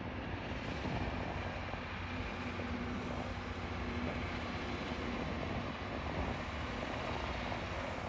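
Network Rail DR79401 rail grinder's engines running as it moves slowly by: a steady drone with a low hum held through it.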